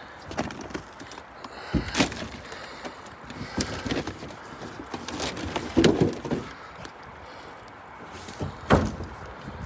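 Scattered knocks and clunks from objects being handled, several sharp ones, the loudest near the end.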